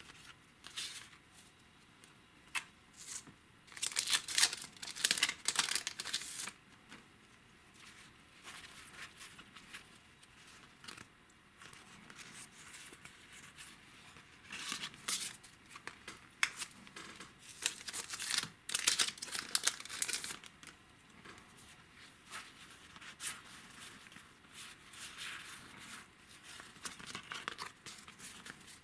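Trading cards being flipped and slid across one another in the hands, in irregular bursts of papery rustling and flicks, the busiest flurries about four seconds in and again past the middle.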